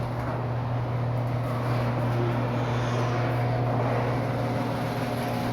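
The time machine's steady, loud mechanical drone, a strong low hum with fainter higher tones over it, as it carries the hunting party back to the present.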